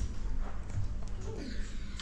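Small wild birds feeding from hands at a balcony railing: scattered light taps and faint bird sounds over a low steady hum.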